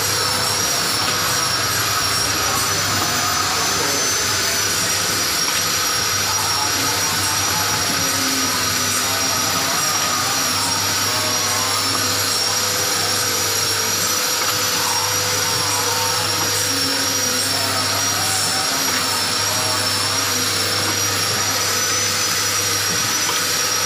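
Automatic cooking-oil pouch packing machine running: a steady, unbroken machine hum and hiss with a thin, slightly wavering high whine.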